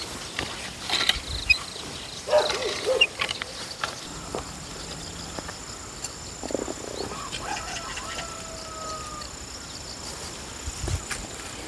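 Outdoor field sounds: scattered knocks and rustles with a short pitched call in the first three seconds, then a steady, high insect chirring from about four seconds in.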